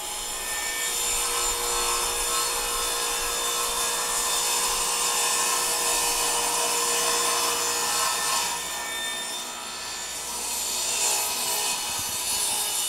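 Table saw running and cutting through a glued-up board of teak, alder and oak strips: a steady sound of the blade in the wood with a constant motor tone, easing a little about nine seconds in and then picking up again.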